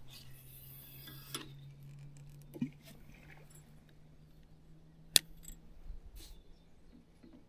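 Light metallic clinks and clicks of gear being handled, with two sharp clicks, one at the start and one about five seconds in, over a faint steady low hum.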